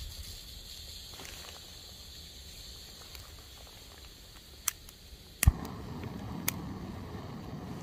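Small canister gas stove being lit in the cold: faint gas hiss from the opened valve, a sharp lighter click, then the burner catches with a pop and burns with a steady rushing sound. Another click follows about a second after it lights.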